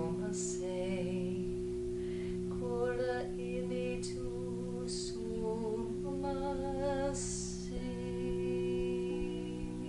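A woman chanting a slow, repeated healing chant in a soft singing voice over the steady ringing drone of singing bowls.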